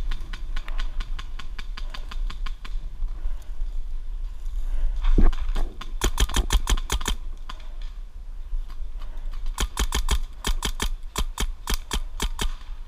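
Paintball marker firing in three rapid strings of shots, several a second, with a single heavier thump about five seconds in.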